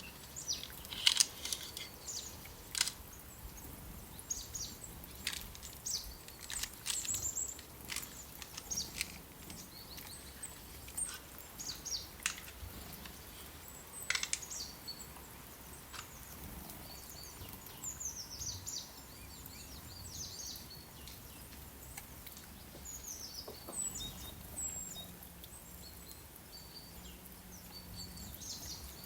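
Small songbirds chirping and singing on and off, short high notes and quick falling whistles, with a few sharp clicks in between over a low steady background.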